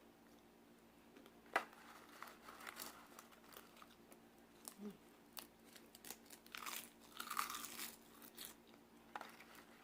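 Crisp snack crunched and chewed close to the microphone, in irregular crackles and crunches.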